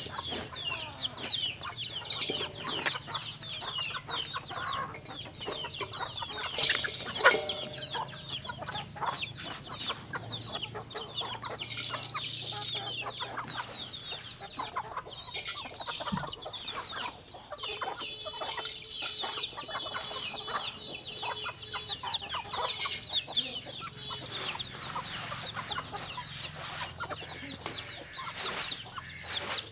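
A flock of chickens clucking and calling, many short high-pitched calls overlapping without pause.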